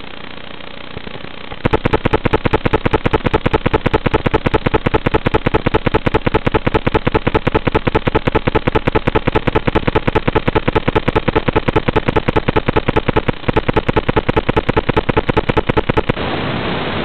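Loud, fast, evenly spaced electronic clicking on the quad's video-transmitter audio feed, interference from the SmartAudio control line that has not been cut. It starts suddenly about one and a half seconds in, breaks off briefly near the end, then stops abruptly, leaving a steady hiss.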